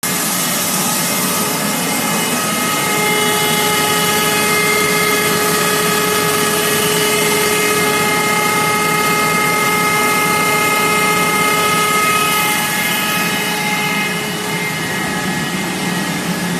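PET pelletizing line machinery running: a loud, steady rushing noise with several steady whining tones over it, which fade out in the last few seconds.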